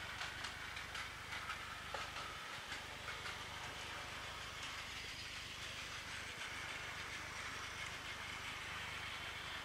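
Battery-powered Plarail 800 Series Shinkansen toy train running on plastic track: a steady motor-and-gear whir, with small clicks in the first few seconds.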